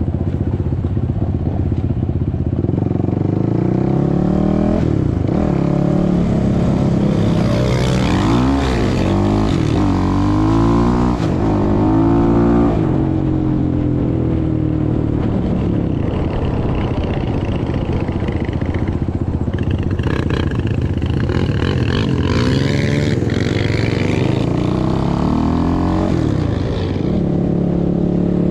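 Suzuki LTR 450 quad's single-cylinder four-stroke engine under way. Its pitch repeatedly climbs and drops as it accelerates and shifts gears, holds steadier for a while midway, and eases off near the end.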